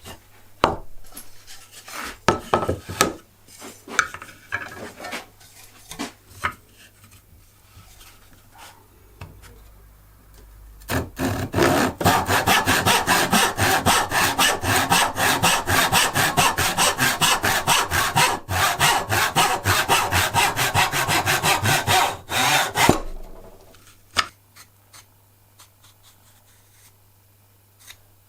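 Hand saw cutting wood with quick, even back-and-forth strokes for about eleven seconds, stopping abruptly. Before it come scattered knocks and scrapes of wood being handled and positioned.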